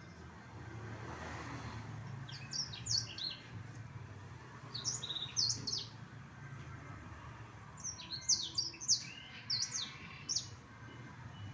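Blackthroat (black-throated canary) singing in three bursts of quick, high, sliding twittering notes, the longest near the end, over a steady low background hum.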